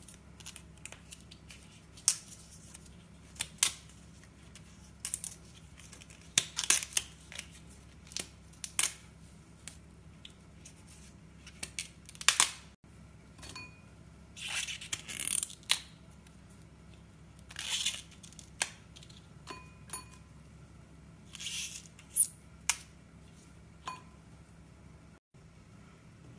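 Outer leaves being snapped off fresh artichokes by hand: a string of sharp, crisp snaps at an uneven pace, with a few longer tearing sounds in the second half as leaves are pulled away.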